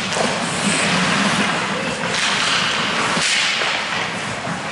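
Ice hockey play in a rink: skate blades scraping and carving the ice, with a few sharp stick-and-puck knocks, under spectators' voices. The scraping swells at about two and three seconds in.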